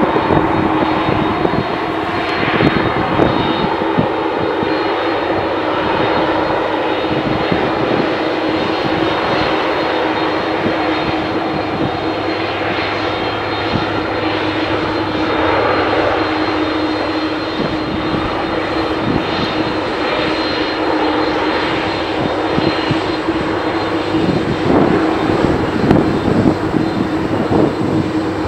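McDonnell Douglas MD-11 freighter's three jet engines running as the aircraft moves along the runway for takeoff: a steady jet noise with a constant humming tone, getting a little louder near the end.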